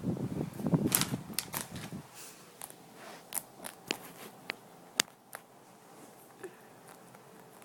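A rabbit chewing a crunchy dried alfalfa hay ring: sharp crunching clicks, dense over rustling for the first two seconds, then sparser and fainter.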